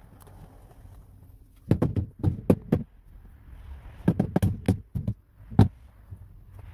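A hand patting and pressing foil-faced sound-deadening mat onto a car door's inner metal panel: two runs of quick, dull knocks, the first a little under two seconds in and the second about four seconds in.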